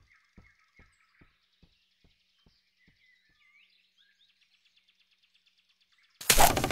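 Cartoon forest ambience with faint bird chirps and soft, regular taps about twice a second that fade away. Near the end comes a sudden loud burst of about half a second as a bent-branch snare trap springs.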